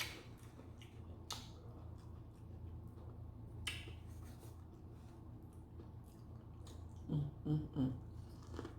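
Close-mic eating sounds: chewing and biting with a few sharp crunchy clicks, over a steady low hum. Near the end come three short hummed sounds.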